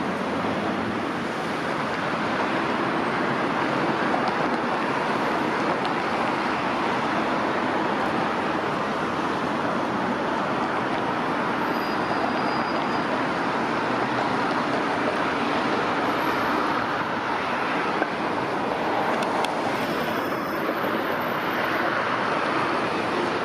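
Steady city street traffic noise with no clear rise or fall, and a single short click late on.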